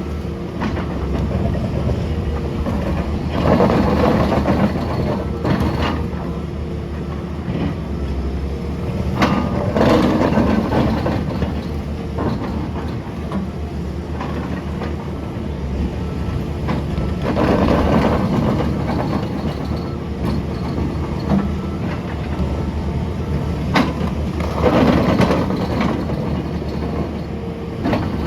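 SANY SY500H hydraulic excavator's diesel engine running steadily, swelling louder under load four times, about every seven seconds, as the ripper works. A few sharp knocks and clanks stand out over it.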